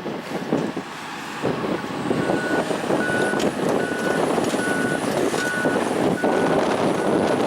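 A machine's reversing alarm beeping at one steady pitch, about once every three-quarters of a second, starting about two seconds in, over the steady noise of heavy machinery running.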